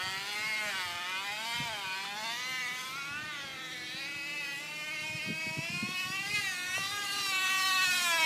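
Crushed plastic water bottle wedged against a spinning bicycle wheel's spokes, flapping against them to make a motor-like buzz. Its pitch wavers up and down with the riding speed and climbs near the end.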